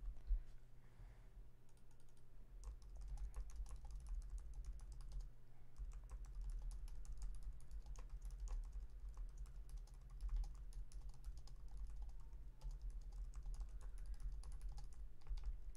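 Typing on a computer keyboard: quick key clicks in runs with short pauses, starting a few seconds in. A thump at the very start is the loudest sound, and a low steady hum runs underneath.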